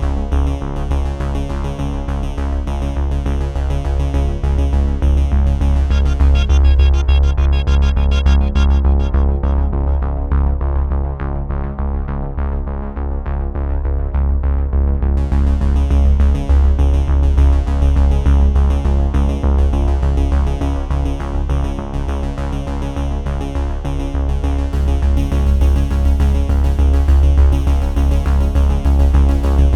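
Electronic background music with synthesizer and a heavy steady bass; partway through, the high end is filtered out for several seconds and then returns.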